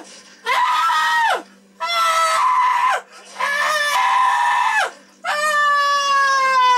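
A man screaming in horror: four long, high-pitched screams, each lasting about a second, with short breaks for breath between them.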